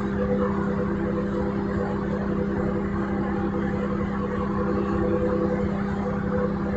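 Catamaran car ferry's diesel engines running steadily under way: a constant low hum with a few higher steady tones over an even rushing noise.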